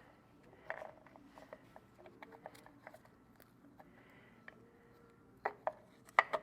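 Scattered light clicks and taps of a metal bracket plate and its bolts being handled and fitted onto a pump manifold, with a couple of sharper clicks near the end.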